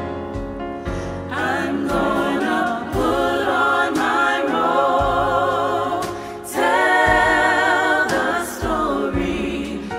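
Small gospel vocal ensemble singing in harmony over instrumental accompaniment with sustained low bass notes. The voices come in about a second and a half in and swell louder a little past the middle.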